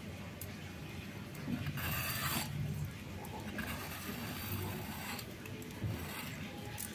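Several scraping strokes, the strongest about two seconds in, as the ridged skin is scraped off a ridge gourd (turai).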